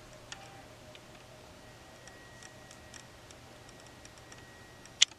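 Quiet room tone with faint, scattered light ticks, and one sharp click about five seconds in.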